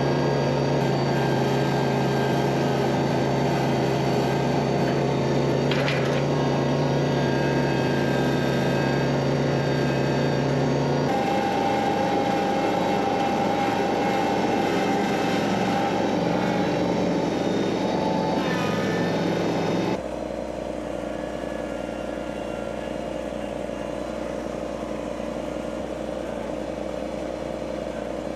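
An engine running steadily with a strong low hum. Its tone shifts abruptly about 11 seconds in, and it drops quieter about 20 seconds in.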